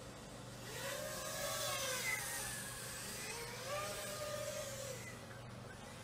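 FPV quadcopter's motors and propellers whining, rising and falling in pitch in two swells as the throttle is worked.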